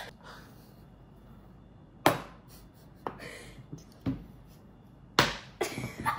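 Frozen banana being knocked hard against a plastic cutting board: four sharp knocks about a second apart.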